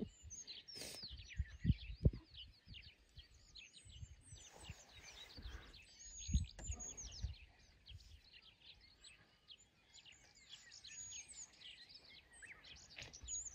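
Several wild birds singing, a busy chorus of short high chirps and trills, with a few low thumps about two seconds in and again about six seconds in.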